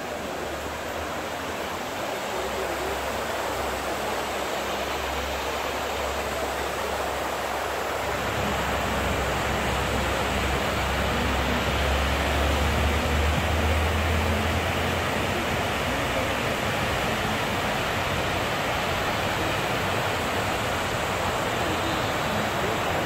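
Steady rushing of water cascading down the walls of the 9/11 Memorial reflecting pool, a continuous waterfall roar that grows louder over the first half and then holds.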